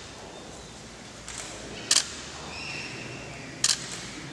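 Two sharp camera shutter clicks, about two seconds in and again near the end, over a quiet room hum.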